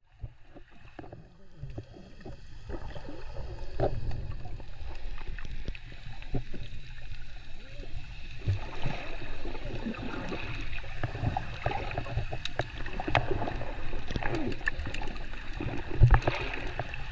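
Water heard from underwater: a low rumbling water noise with bubbling and crackling as snorkelers swim and kick close by, and a sharp splash near the end. It starts very quiet and builds over the first few seconds.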